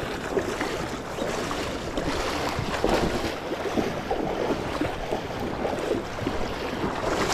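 Steady rushing of river current, heard close up.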